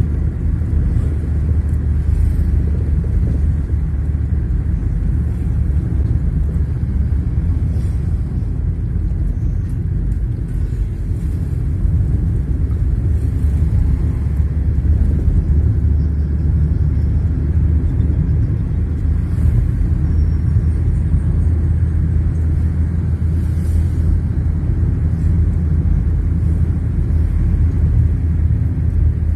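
Steady low rumble of a car on the move, heard from inside the cabin: engine and tyre noise, even throughout.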